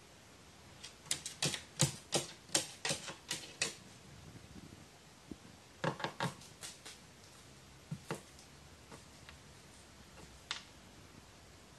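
A pet crow pecking with its beak at a hard surface: quick, sharp taps in bursts of several, with pauses between the bursts.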